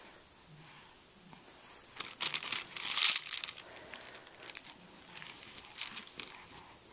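Rustling and crinkling handling noise as a chain of plastic baby link rings is picked up and dangled, with light clicks of the rings. It is loudest for about a second and a half, a couple of seconds in.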